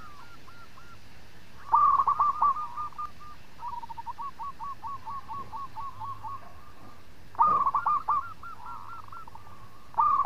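Zebra dove (perkutut) cooing: loud phrases of rapid staccato coos about two seconds in and about seven and a half seconds in, with a third starting right at the end. Softer runs of quick notes fill the gaps between them.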